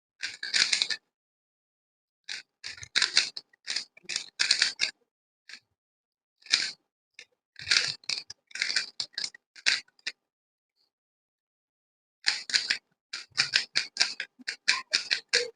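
3x3 Rubik's cube being turned: quick runs of plastic clicks and scrapes as its layers are rotated through three-move pair inserts, in several bursts with short pauses between, the longest pause about two seconds near the end.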